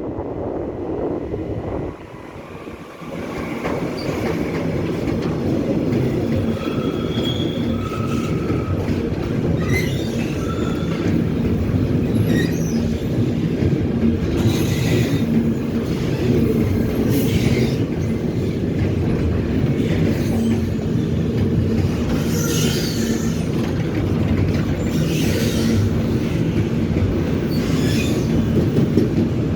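A train passing at speed, with a steady rumble of the wagons, wheels clacking over rail joints and short, high-pitched wheel squeals.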